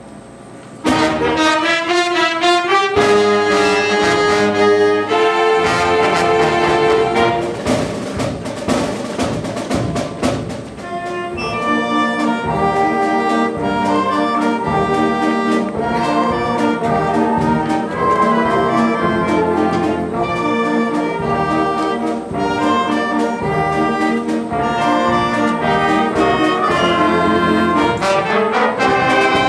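Small school concert band of woodwinds and brass starts playing about a second in and plays on loudly.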